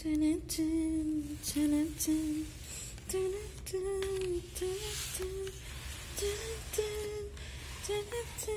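A woman humming a wordless tune in long held notes, stepping up in pitch twice, with a few light clicks as the cardboard food box is turned.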